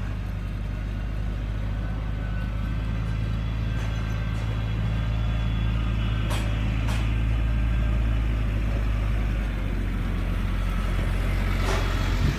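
Farm tractor engine running steadily and growing louder as it comes closer, then easing off about three-quarters of the way through as it slows. Two short knocks come in the middle and another near the end.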